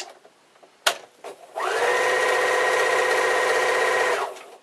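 Electric sewing machine stitching a pair of quilt pieces, running at a steady speed for about two and a half seconds, starting about a second and a half in and stopping near the end. Two sharp clicks come just before it.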